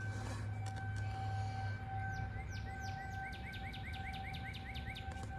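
A songbird singing: a series of down-slurred whistled notes that speed up into a rapid trill, starting about two seconds in and stopping shortly before the end.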